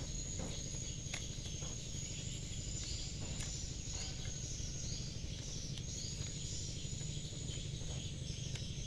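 Quiet steady background with a constant high, thin tone and a low hum, and a few faint light clicks from handling the plastic housing and coil of a magnetic contactor during reassembly.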